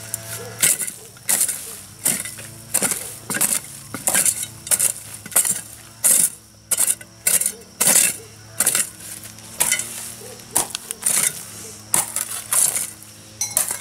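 A knife working cassava root in quick, regular strokes, about one and a half a second, each a short sharp scrape-and-cut.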